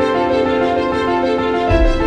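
Background music of sustained held notes, with a low bass coming in near the end.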